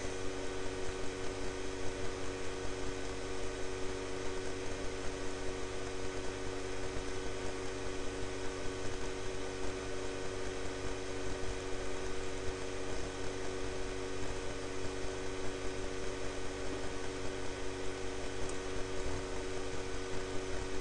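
Steady electrical hum, with a few fixed tones over a constant hiss and nothing else happening.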